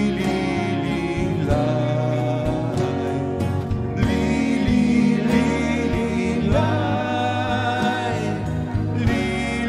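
A rock band playing a Polish Christmas carol live: drum kit, acoustic and electric guitars, bass guitar and keyboard, with a man singing the melody.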